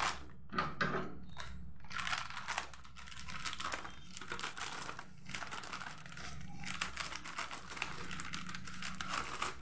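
Scissors cutting open a plastic snack packet, the wrapper crinkling steadily as it is held and snipped, with a few sharper snaps along the way.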